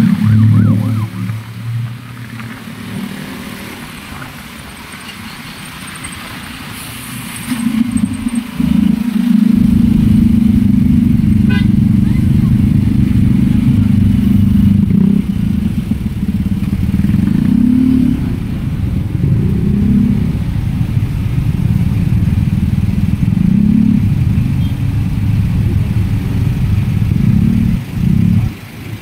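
Low engine rumble of a Yamaha motor scooter and the traffic around it, heard from the rider's seat as the scooter slows through congested traffic to a stop. The rumble grows much louder about a third of the way in and then holds steady.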